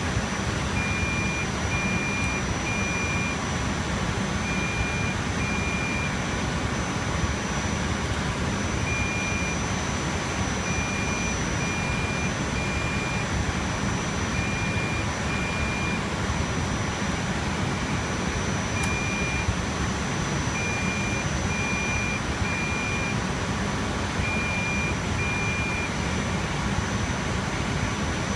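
Rack-server cooling fans running loudly and steadily with a constant high whine. Short electronic beeps at one pitch sound in small groups of one to three every few seconds.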